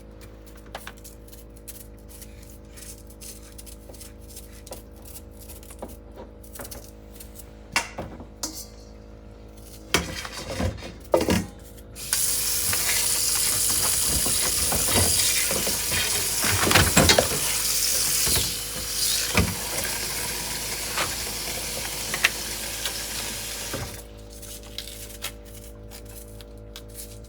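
Food sizzling in a hot pot: a loud, steady hiss that starts suddenly about twelve seconds in and cuts off about twelve seconds later, with a few knocks and clatters of utensils just before it.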